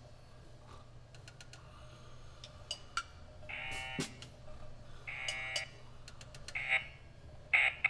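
Electronic buzzer of an Operation board game, the sign of the tweezers touching the metal edge of a cavity. It sounds in two buzzes of about half a second, a little past three seconds in and again at five seconds, with shorter rasps near the end and light clicks and taps between them.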